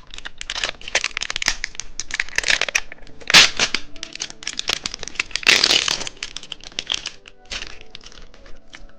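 Plastic snack wrapper crinkling and rustling as it is handled and torn open, a dense crackle with two louder rustles about three and a half and five and a half seconds in.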